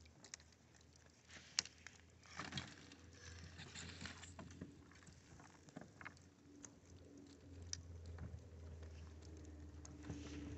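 Faint, scattered ticks and taps on thin sheet ice covering a lake.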